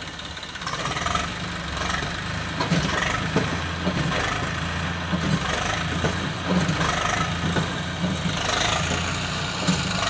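Eicher 380 tractor's diesel engine running steadily under load as it tries to pull a fully loaded trailer, its rear wheels dug into the sand.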